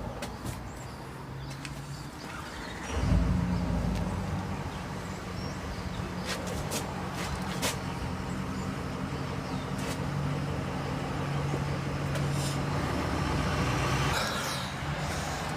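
A motor runs with a steady low hum. It starts suddenly about three seconds in and fades out near the end, with scattered clicks and taps throughout.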